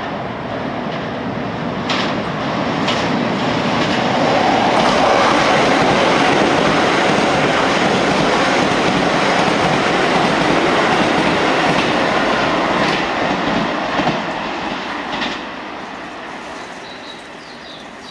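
Keisei 3400 series electric train running through at speed, its wheels clacking over rail joints. The noise builds as it comes in, holds with a few sharp joint clacks, and drops away about 15 seconds in.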